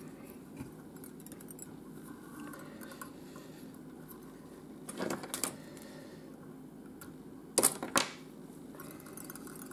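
Small handling clicks at a fly-tying vise as the tying thread and tinsel braid tag are tied off and trimmed: a few light clicks about halfway through, then two sharper clicks close together near the end, over a low steady hum.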